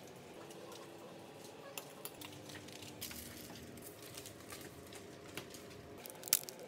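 Faint scrapes and light clinks of a knife and utensils as a small cake is frosted. About six seconds in come a couple of sharp crinkling clicks as an aluminium foil tin is picked up.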